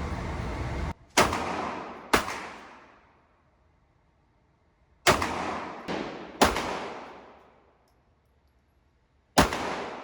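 9mm compact pistol fired six times at uneven intervals, two shots about a second apart, then a quick string of three, then one more. Each sharp report rings on for about a second. A steady background noise cuts out just before the first shot.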